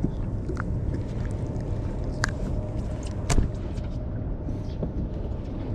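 Steady low rumble aboard a small fishing boat, with a few sharp clicks and knocks; the loudest knock comes a little over three seconds in.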